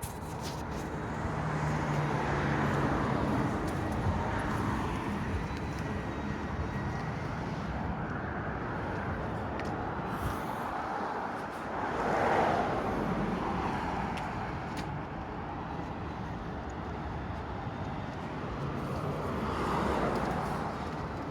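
Storm-force wind blowing hard in gusts, swelling a couple of seconds in, again near the middle and once more near the end.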